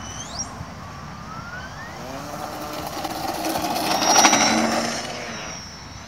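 Electric motor and propeller of a balsa RC biplane throttling up for takeoff, its whine rising in pitch. It grows louder to a peak about four seconds in as the plane passes, then fades as it flies away.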